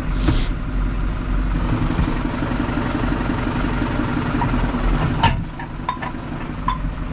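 Tractor diesel engine running steadily, with a single clunk a little past five seconds in.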